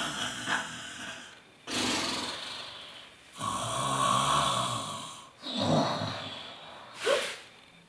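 A woman doing mock snoring while pretending to sleep: a string of long snores, each lasting a second or two, with the last one short.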